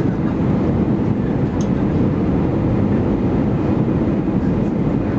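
Steady, loud cabin noise of an Airbus A319 in flight: engine and airflow rumble heard from inside the passenger cabin.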